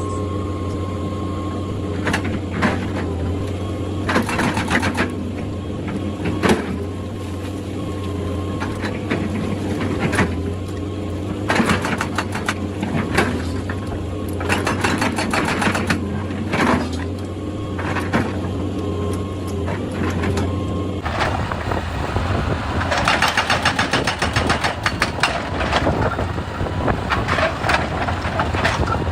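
Excavator's diesel engine running steadily under irregular clanks and scrapes, as of the bucket working against rock and soil. Near the end comes a spell of fast, dense rattling.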